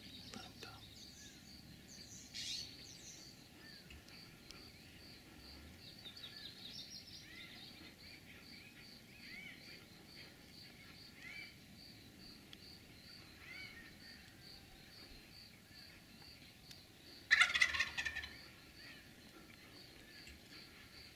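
A wild turkey gobbler gobbling once near the end: a loud rattling call about a second long. Under it runs a steady, evenly pulsing insect trill, with faint scattered bird chirps.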